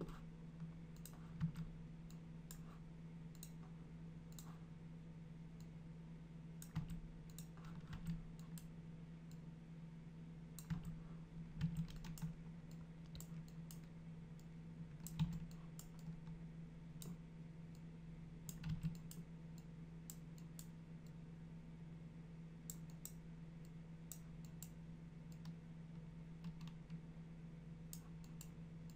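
Faint, irregular clicks of a computer mouse and keyboard keys, some in small clusters, over a steady low hum.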